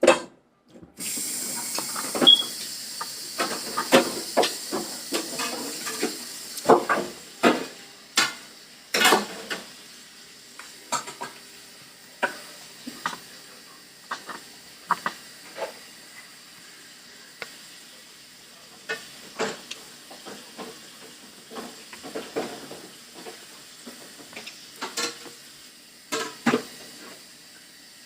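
Close-up eating sounds: chewing and cutlery clicking and scraping against a plate in many short, irregular taps, over a steady hiss.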